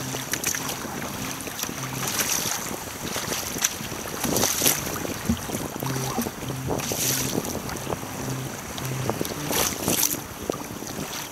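Wind buffeting the microphone over choppy sea water sloshing and splashing around a sea kayak, with several louder gusty, splashy surges. Faint low repeating notes run underneath.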